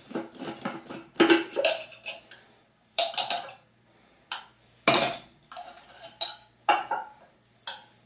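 Handling noise: a series of irregular sharp clinks and knocks as objects are picked up and set down on a concrete floor.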